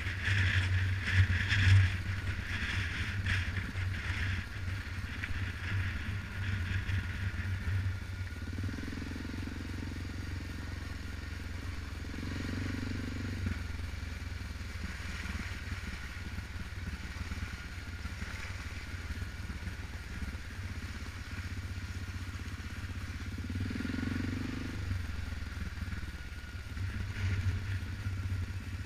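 Suzuki KingQuad 700 ATV's single-cylinder four-stroke engine running steadily while riding a rough dirt road, with the loaded rack rattling over bumps, most in the first few seconds.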